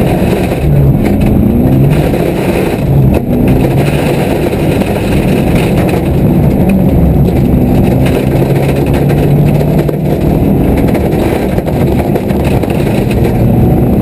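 A car engine heard from inside the cabin, driven hard on a gravel road. Its note climbs and drops back several times as it runs up through the gears, over a steady rumble of tyre and road noise.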